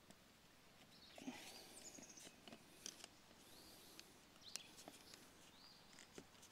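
Near silence, with a few faint clicks and taps as a folding camp table is put together, and faint high chirps.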